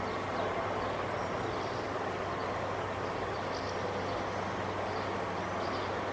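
Steady outdoor street noise with a constant low hum underneath, and a few faint high chirps scattered through it.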